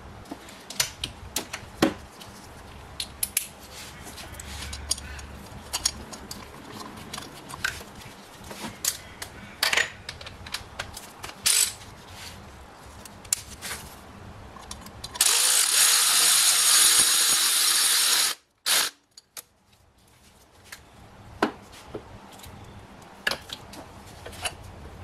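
Scattered clicks and knocks of tools on metal while the thermostat housing is being bolted in place. About two-thirds of the way through comes a loud, steady hiss lasting about three seconds that cuts off suddenly.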